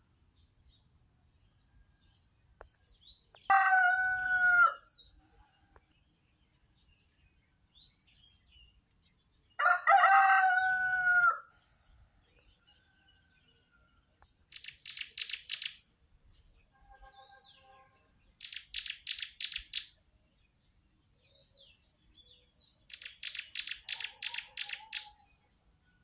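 Rooster crowing twice, about six seconds apart, each crow a little over a second long. Later a bird sings three bursts of rapid, evenly pulsed high chirps, each about a second and a half long.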